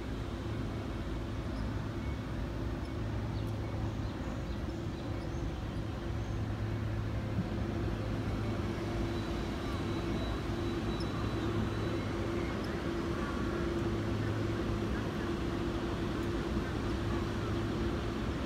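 Steady hum of an ES2G Lastochka electric train standing at the platform with its doors open: a low drone under a higher held tone, with no change in pitch.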